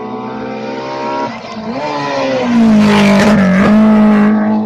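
Rally car's engine on a special stage: its note drops about a second in, then climbs hard as the car accelerates past close by, loudest about three to four seconds in, then falling away quickly.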